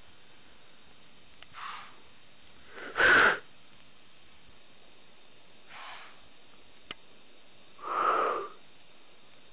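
White-tailed doe blowing: four sharp, forceful snorts through the nose, the loudest about three seconds in. This is a deer's alarm snort.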